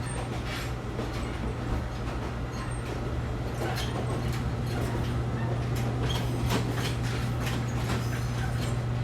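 Old train running along the line, heard from inside the carriage: a steady low hum under rattling and irregular clicks of the wheels on the rails.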